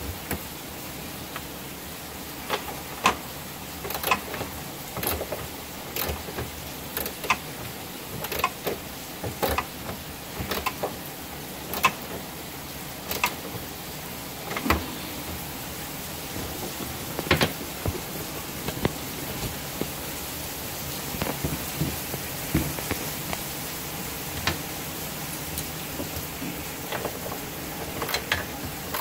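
Sharp, irregular clicks and knocks, about one a second, over a steady hiss: hand tools and parts being handled while the engine is fitted on new mounts.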